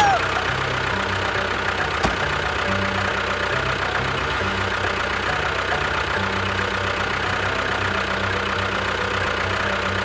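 Steady, even machine running noise, starting abruptly and continuing unchanged, with background music underneath.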